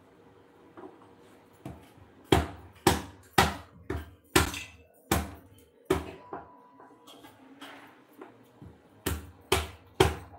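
A series of sharp knocks or strikes, about two a second: a run of about seven from around two seconds in, then three more near the end.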